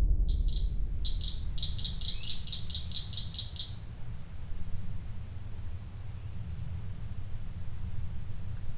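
Wetland wildlife ambience: a rapid trill of high chirps, about five a second, for the first few seconds, over a steady thin high insect drone and a low steady rumble.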